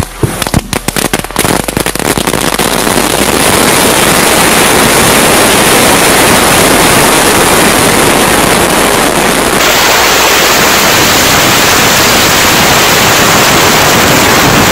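A mass of 10,000 firecrackers going off: a quick run of loud separate bangs in the first two seconds, then the cracks come so fast they merge into one continuous, dense crackle.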